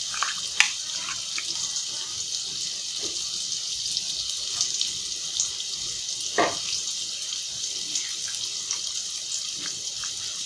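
Chopped onions and green chillies sizzling in a little hot oil in a metal pan: a steady hiss with scattered crackles and pops, the loudest pop about six seconds in.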